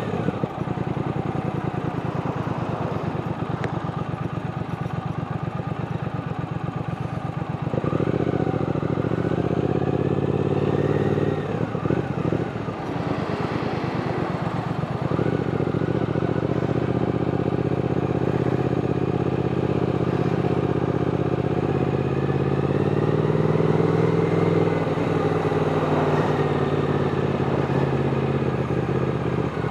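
Triumph parallel-twin motorcycle engine running under way. Its pitch and level step with gear changes about a quarter of the way in and again near the middle, and it rises and falls gently later on.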